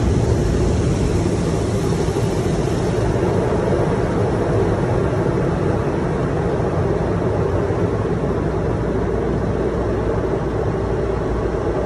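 Automatic car wash heard from inside the car's cabin: a steady rushing drone of water spray pouring over the windshield and body, with the wash equipment running.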